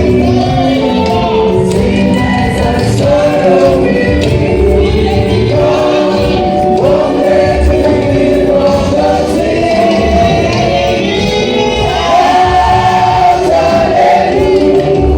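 Gospel choir singing with instrumental backing, many voices carrying a melody together.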